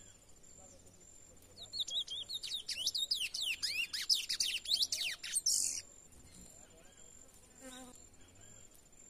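A young male chestnut-bellied seed finch still in brown plumage (curió pardo) singing a fast run of sweeping, whistled notes for about four seconds, starting a little over a second in. It is a bird still loosening up and opening its song.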